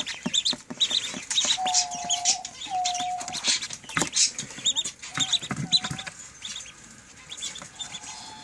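Young birds peeping in many short, high chirps, with a few longer, lower steady calls and a sharp tap about four seconds in; quieter near the end.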